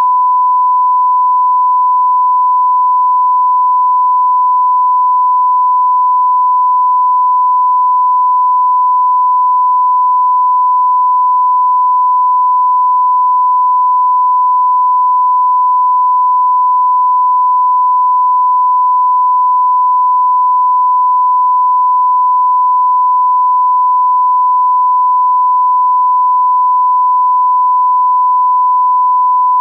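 Broadcast test tone accompanying a television test card: one loud, pure, unbroken tone that holds steady in pitch and level.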